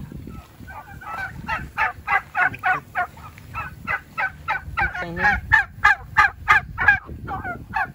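A flock of young domestic turkeys calling in a fast run of short, high calls, about three a second, getting louder midway through.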